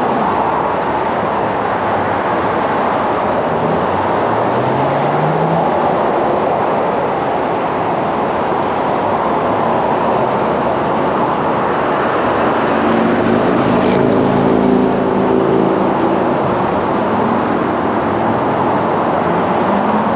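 Steady road traffic noise. A vehicle engine rises in pitch about four seconds in, and a heavier engine runs louder for several seconds past the middle.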